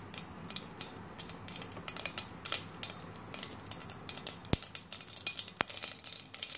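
Mustard seeds crackling in hot oil in a pressure cooker: irregular sharp pops over a faint sizzle, with two sharper snaps past the middle.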